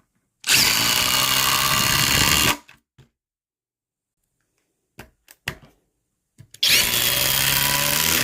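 Cordless impact driver running under load in two bursts of about two seconds each, with a few short clicks between the runs.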